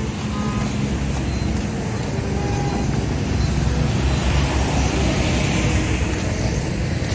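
Steady traffic noise on a wet, flooded road in the rain: car and motorbike engines running with a continuous low rumble.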